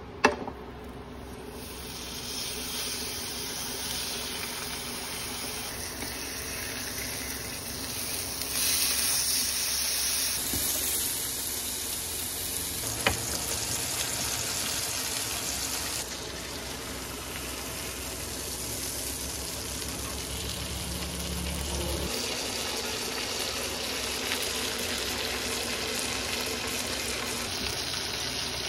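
Rib eye steak sizzling in a hot pan: a steady sizzle after a sharp knock at the start, briefly louder about a third of the way in, with one short click midway.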